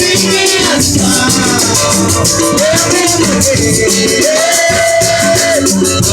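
Brazilian percussion music played live, with a fast, steady shaker rhythm over a low drum pulse and a voice singing long held notes.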